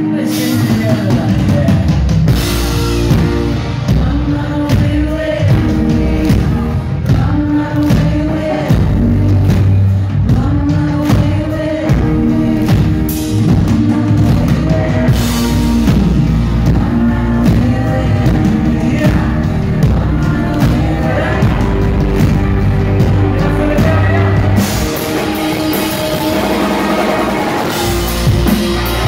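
Rock band playing live: a male lead vocal over electric guitar, drum kit and keyboards. The low end drops away for a few seconds near the end.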